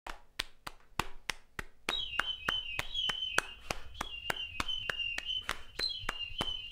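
Steady ticking, about three sharp clicks a second, joined about two seconds in by a thin, high, slightly wavering tone.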